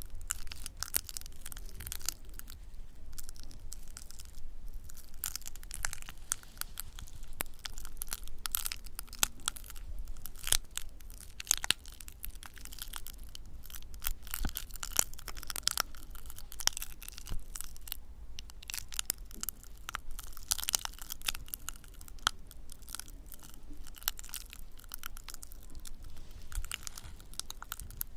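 Close-miked ASMR trigger sounds: dense, irregular crackling and crunching from objects being handled.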